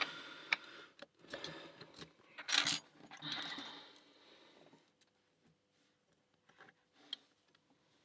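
Lock picks and a tension tool clicking and rattling in an Alpha 1000-35 padlock, a fast burst of small metallic clicks. The rattle is loudest about two and a half seconds in and dies away to a few faint ticks after about four seconds.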